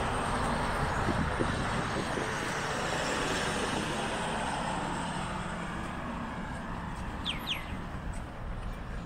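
Road noise of a car driving past on the street, fading steadily as it moves away, with two quick bird chirps near the end.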